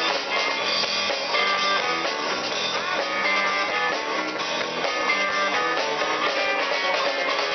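Live rock band playing, with electric guitars over a drum kit.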